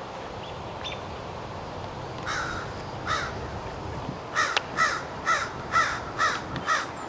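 American crow cawing: two spaced caws, then a quicker run of six harsh caws at about two a second.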